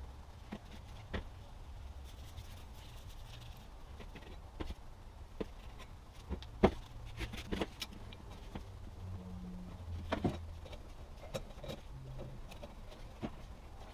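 Scattered light clicks and knocks of metal and rubber parts handled on a bench as new rubber boots and a CV joint are fitted onto a front CV axle shaft. The sharpest knock comes about halfway through, over a low steady hum.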